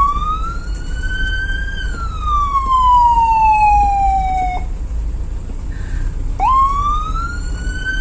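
Vehicle siren sounding twice: a tone that rises for about two seconds, falls away slowly and cuts off before five seconds in, then starts rising again after a short gap, over the low rumble of the moving vehicle.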